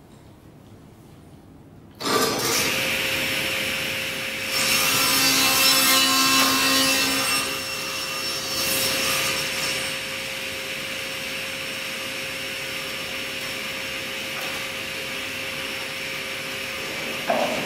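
Table saw switched on about two seconds in, its motor running with a steady whine. The blade cuts through a wooden board, louder for about three seconds and again briefly, then the saw runs on without cutting.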